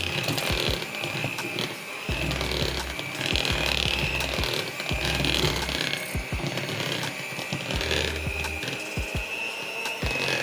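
Electric hand mixer running steadily with a high motor whine, its beaters whipping brigadeiro together with whipped cream in a bowl. Background music plays along with it.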